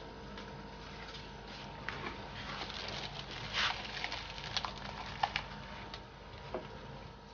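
Thin polythene bag crinkling and rustling as it is handled, with a run of sharp crackles in the middle, the loudest about three and a half seconds in, over a faint steady hum.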